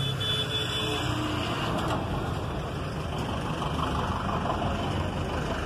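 Steady background noise of road traffic and vehicle engines, with a few faint brief tones in the first second.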